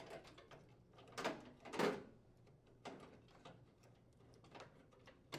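Plastic door switch holder being worked loose and pulled free of a microwave oven's metal frame: a few light clicks and knocks, the two loudest about a second and nearly two seconds in.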